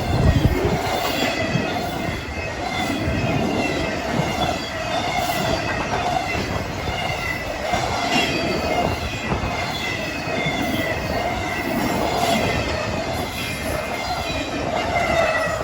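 Intermodal freight cars of a BNSF train rolling past, wheels clicking over rail joints, with a steady wavering squeal from the wheels on the rail.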